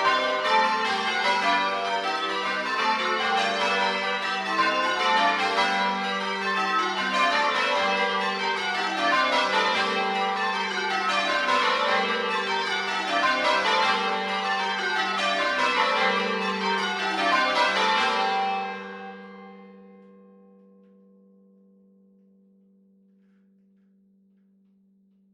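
Ten church bells change ringing, heard from inside the belfry: a fast, continuous cascade of overlapping strikes. The ringing stops about eighteen seconds in, and the bells' low hum lingers and slowly dies away.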